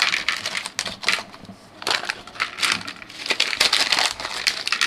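A sealed LEGO minifigure polybag being torn open and crumpled in the hands: irregular crinkling and crackling in clusters.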